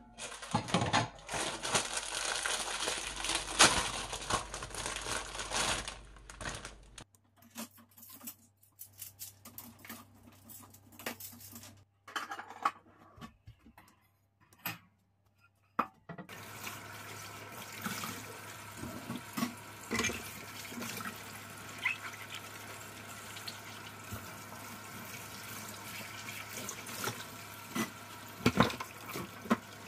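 Tap water running into a sink for several seconds, then a few light knocks and clatter, then a steady low hiss with scattered clicks.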